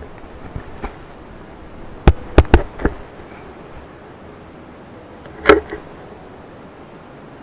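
Sharp hard knocks and clicks over a steady low hiss: four quick ones about two to three seconds in, then a single louder clack about five and a half seconds in.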